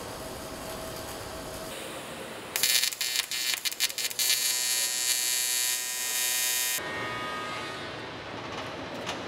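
Steady factory hum, then a hand-held welding arc on the aluminium spaceframe. The arc strikes with a loud crackling about two and a half seconds in, settles into a steady buzzing hiss, and cuts off suddenly about seven seconds in, leaving the hum.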